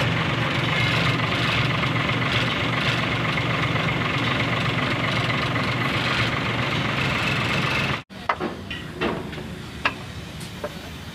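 A truck engine running steadily for about eight seconds, then a sudden cut to a quieter workshop background with a few sharp clicks and knocks.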